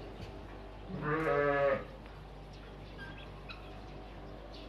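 An Afghan-breed sheep bleats once, a single pitched call of under a second about one second in.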